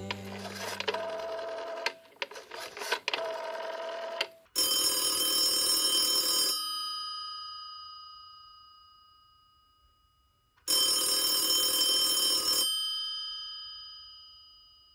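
Rotary-dial desk telephone's bell ringing twice, each ring about two seconds long and fading away for a few seconds after it stops. The rings come about six seconds apart.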